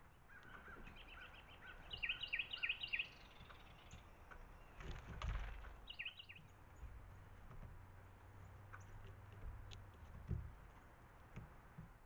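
A songbird singing two quick runs of clear whistled notes, each falling in pitch: about five notes a couple of seconds in, then three more about four seconds later, with fainter chirps before them and a low rumble underneath.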